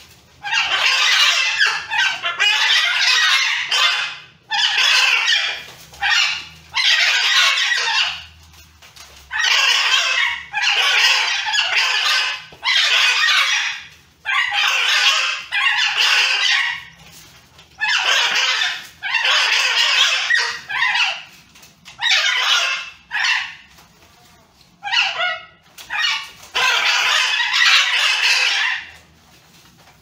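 Blue-and-gold macaws squawking loudly in a fight: a string of harsh, raspy calls, each lasting about a second or two with short gaps between. Past the middle, one call breaks into a fast stuttering series.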